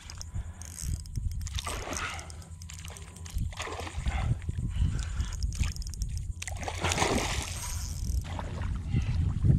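A hooked redfish (red drum) thrashing and splashing at the water's surface in several irregular bursts, over a steady low rumble.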